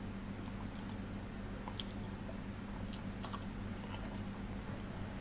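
Close-up eating sounds of chicken feet curry and rice being eaten by hand: a few scattered soft, wet clicks of chewing and fingers working the curried rice. A steady low hum runs underneath.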